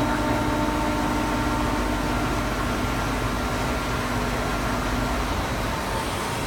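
CNC tool grinding machine running with a steady mechanical hum and noise. A few steady tones in it stop about five seconds in, while the broad machine noise carries on.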